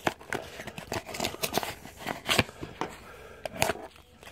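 Rigid plastic trading-card top loader and cardboard backing being handled and shifted by hand: irregular light plastic clicks and scrapes with soft rustling.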